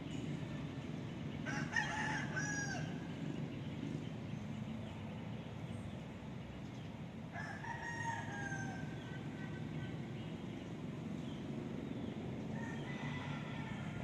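Rooster crowing three times, several seconds apart, each crow a drawn-out call that falls in pitch at the end. A steady low rumble runs underneath.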